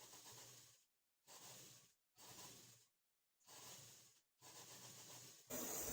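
Near silence: faint room hiss that drops out to dead silence several times.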